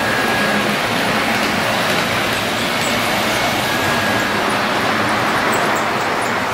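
LGB garden-scale model trains running on the layout's track, a steady rolling and running noise.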